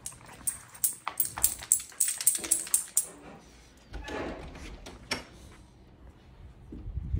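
A small dog's claws clicking quickly on a tile floor, about four sharp clicks a second for the first three seconds, then a softer scuffling sound about four seconds in.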